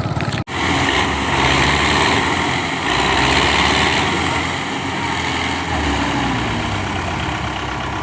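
A motor vehicle's engine running steadily under a loud, even hiss, after a sudden break in the sound about half a second in.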